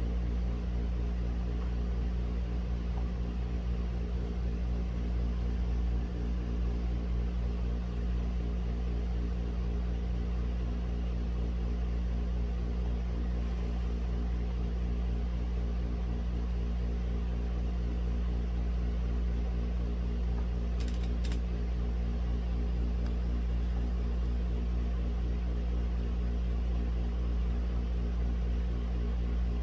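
A steady, low machine hum of even pitch, with a few faint clicks about two-thirds of the way through.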